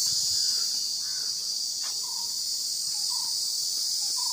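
A cicada calling: a continuous, shrill, high-pitched buzz that holds steady without a break and is ear-splittingly loud.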